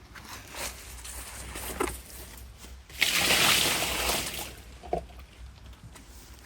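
Water sloshing and splashing as freshly dug potatoes are washed by hand, with a louder rush of water about three seconds in lasting just over a second, and a couple of light knocks.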